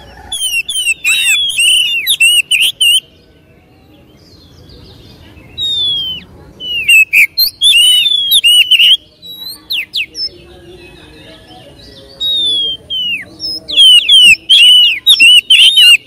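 Oriental magpie-robin (kacer) singing loudly in three phrases, each opening with a falling whistle and then a fast run of repeated notes, with short pauses between.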